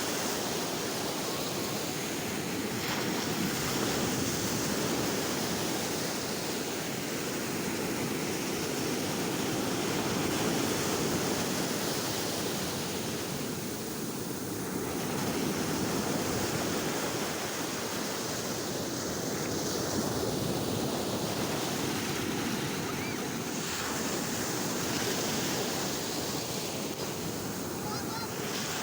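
Sea surf: waves breaking and washing ashore in a continuous wash of water, swelling and easing every few seconds.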